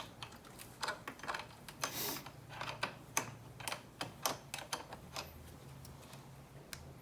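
A 10 mm wrench clicking and tapping on the negative battery terminal nut as it is loosened, in irregular sharp metal clicks that stop about five seconds in.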